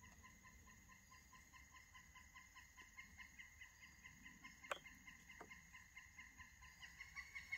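Near silence: faint, even chirping, about five a second, with two light clicks near the middle.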